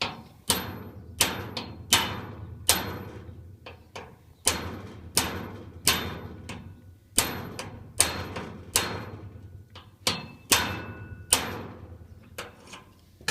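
A hammer repeatedly rapping a seized steel padlock, about sixteen sharp blows a little under a second apart, each ringing briefly. The blows are an attempt to jar free a padlock that has been rusted solid for years.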